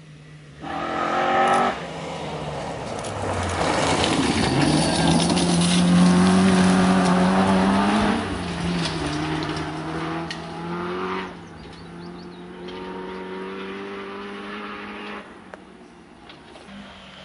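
Historic rally car driven hard past on a gravel forest stage. The engine note climbs for several seconds, drops sharply about eight seconds in, then fades as the car drives away, with tyre and gravel noise at its loudest as it passes.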